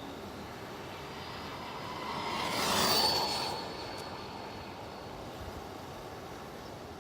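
Traxxas Rustler VXL RC stadium truck with a Velineon 3500 kV four-pole brushless motor passing at high speed: its high motor whine and tyre noise swell to a peak about three seconds in and fade, the whine dropping in pitch as it goes by.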